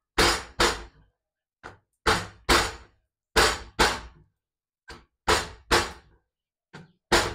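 Hands slapping a stack of three hot, freshly cooked parottas from the sides between the palms, in sharp pairs of slaps about half a second apart, repeated about five times, some pairs led by a faint tap: the patting that loosens the flaky layers.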